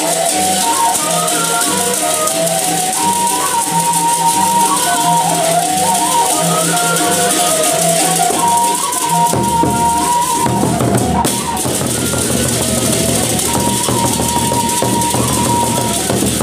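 Sasak gendang beleq ensemble playing: a high, wavering melody over constant clashing cymbals. About nine seconds in, the low end fills out heavily as the big drums come in strongly.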